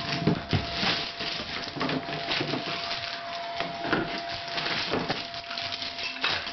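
Wrapping paper being torn and crumpled in a run of irregular crackles and rips as a present is unwrapped, with a faint steady tone underneath.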